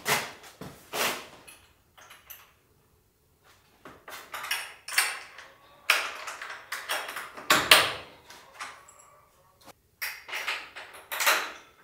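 Metal latch hardware clicking and knocking against a wooden frame as latches are fitted, a run of short, sharp knocks with quiet gaps between them.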